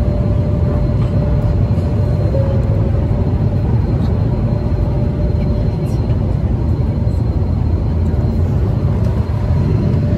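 Passenger airliner cabin noise in flight: a deep, steady rumble of engine and air noise with a faint steady whine over it.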